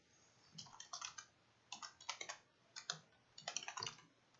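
Computer keyboard typing: short bursts of several quick keystrokes with brief pauses between them.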